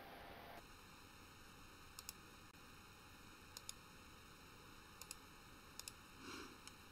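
Near silence: faint room hiss with four pairs of soft, sharp clicks spread through it.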